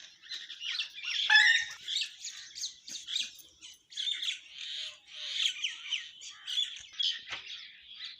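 Several wild birds chirping and singing at once, short calls overlapping without a break. A louder call drops in pitch about a second in.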